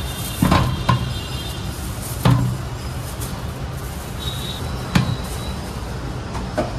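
About five sharp knocks at uneven intervals, the loudest about two and five seconds in, over a steady low background rumble.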